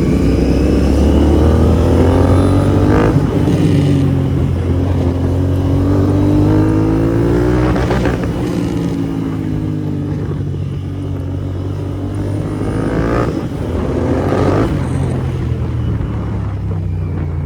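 Royal Enfield Interceptor 650's parallel-twin engine through a Red Rooster Performance aftermarket exhaust, under way and accelerating, its pitch rising and then dropping several times as the throttle is rolled on and off.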